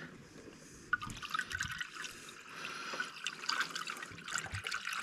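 Engine coolant pouring from a plastic jug into the cooling system's filler neck, an uneven trickle and splash starting about a second in. The cooling system is being topped up after a water pump and thermostat replacement.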